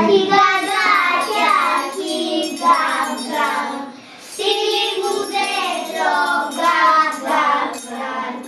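Children singing a song to music with jingle bells, in two phrases of about four seconds each with a short break between them.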